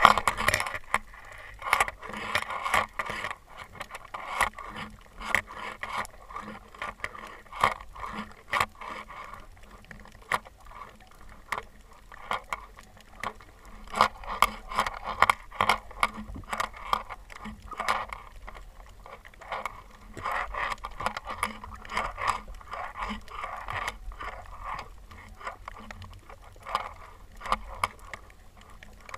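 Underwater sound picked up by a GoPro in a towed TrollPro housing: irregular clicks, knocks and scrapes of the housing and water moving past it, over a low steady hum.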